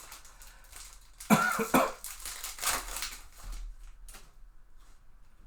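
A person coughing: a loud double cough about a second in, then a weaker one shortly after, with faint handling clicks around it.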